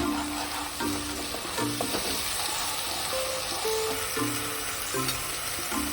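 Spice paste sizzling in hot oil in a pan as it is stirred, over soft background music.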